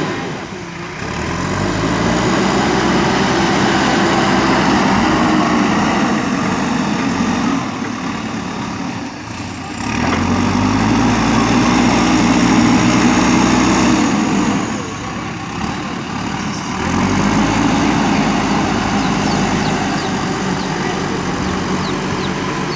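A JCB 3DX backhoe loader's diesel engine running. It revs up under load three times, each for several seconds, and drops back toward idle in between.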